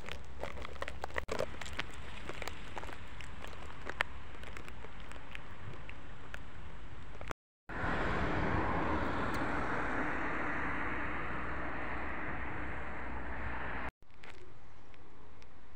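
Footsteps crunching over concrete, gravel and grass, with scattered clicks over a steady low rumble. After a sudden cut comes about six seconds of a louder, even rushing noise. After another cut the footsteps and rumble return.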